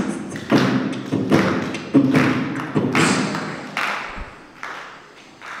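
Slow, steady drum beats, about one and a half a second, each a dull thud with a short ring, growing fainter toward the end.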